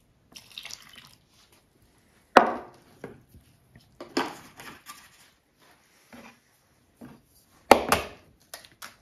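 Milk poured from a glass into a mixing bowl, among light kitchen handling noises, with three sharp, ringing knocks of a glass or utensil against the bowl or counter, the loudest about two and a half and eight seconds in.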